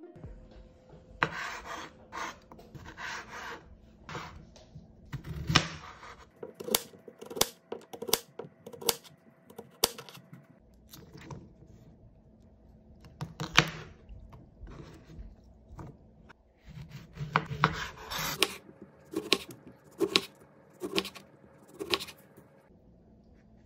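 Kitchen knife cutting vegetables and lemon on a wood-fibre composite cutting board: a run of sharp taps as the blade meets the board, about two a second in places, with rustling handling sounds near the start.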